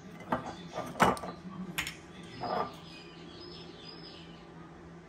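A few sharp clicks and knocks of bottles and a seasoning shaker being handled around a glass salad bowl, the loudest about a second in, then a brief rustle. Faint high chirps follow near the end.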